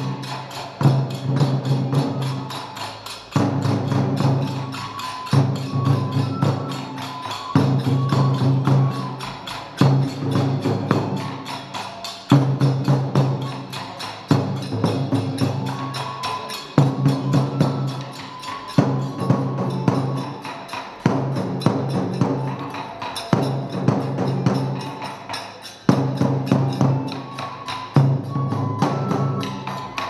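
Kagura festival music for a gongen-mai lion-head dance: fast percussion with jingling cymbals and drum, a high bamboo transverse flute, in repeating phrases about two seconds long.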